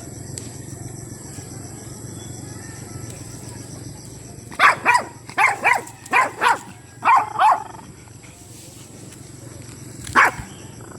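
Dog barking in quick pairs: about eight sharp barks over some three seconds starting near the middle, then a single bark near the end.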